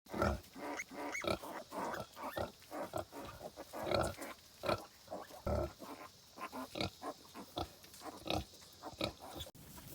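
Pigs grunting, many short grunts coming quickly and irregularly, typical of a sow with her young piglets.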